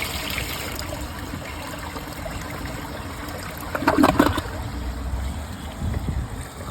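Briggs Altima toilet refilling after a flush: water running and trickling steadily, with a brief louder sound about four seconds in.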